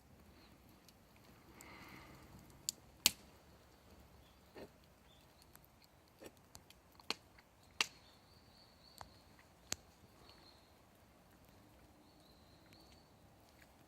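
Wood fire crackling, with about eight sharp, irregular pops, the loudest about three seconds in.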